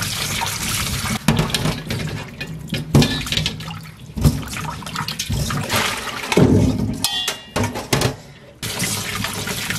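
Tap water running into a stainless steel bowl of green plums (maesil) while gloved hands swish and rub the fruit in the water, with several sudden splashes. The water sound drops away briefly about eight seconds in, then picks up again.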